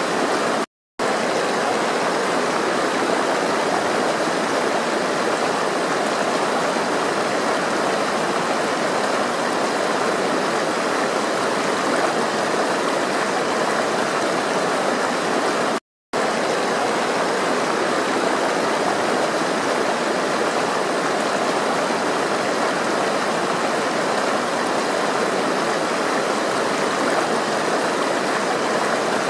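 Flowing water rushing steadily, like a stream over rocks. It cuts out completely for a split second twice, once just under a second in and once about halfway through.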